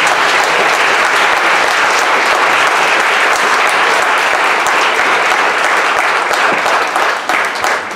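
Audience applauding steadily, thinning out slightly near the end.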